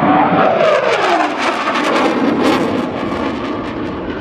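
CF-18 Hornet fighter jet's twin General Electric F404 turbofans, loud, as the jet flies past. The whine falls in pitch as the aircraft goes by, a rough crackle runs through the middle, and the noise eases toward the end.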